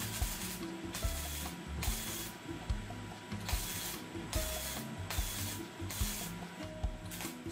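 Gasless flux-core MIG welder crackling in short bursts of about half a second, roughly once or twice a second. The bead on thin square steel tubing is being laid as a chain of spot welds, so it does not burn through.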